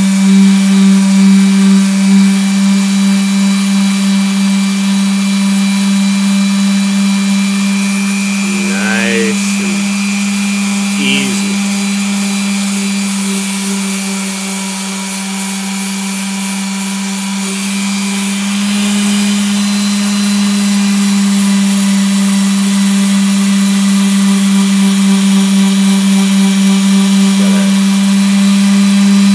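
Electric detail sander running with a steady hum, its pad rubbing over a painted canvas. The sound eases for a few seconds midway, when the sander is lifted off the surface.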